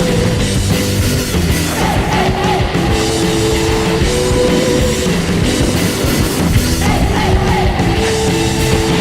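Rock song playing as background music, with a steady beat and held notes.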